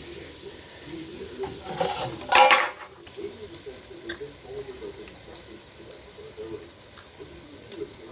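Metal utensil scraping and clinking in a cooking pan, with one loud ringing scrape about two and a half seconds in.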